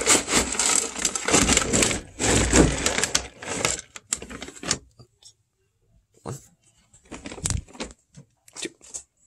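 Rustling and rattling of horse feed bags being handled in a wooden feed bin. Dense and continuous for about the first five seconds, then a few scattered knocks and rustles.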